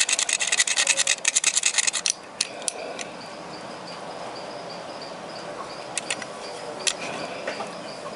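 Utility-knife blade scraping the coating off a small green power resistor in rapid short strokes, about ten a second, that stop about two seconds in. A few light clicks follow as the part is handled.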